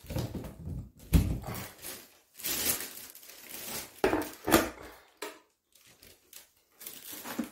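Irregular rustling, crinkling and clatter of food packaging and disposable containers being handled, with a few sharp knocks.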